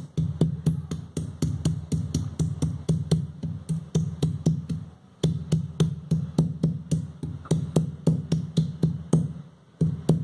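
Stone roller pounding ginger and chillies on a stone grinding slab (shil-pata): rhythmic stone-on-stone knocks at about three to four a second, pausing briefly about halfway through and again near the end.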